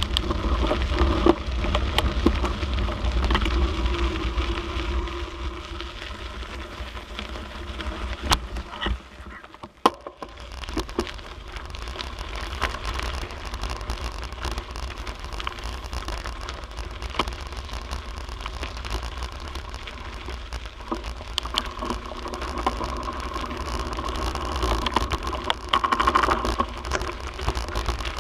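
A bicycle ridden over a gravel trail: tyres crunching and the bike rattling under a heavy rumble of wind on the camera microphone, with scattered clicks. The noise drops off sharply for about a second near the ten-second mark, then picks up again.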